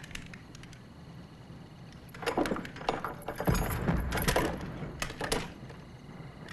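Metal chain and padlock rattling and clinking against a wooden door as they are handled, with a dull knock of the door panel in the middle, over about three seconds from about two seconds in.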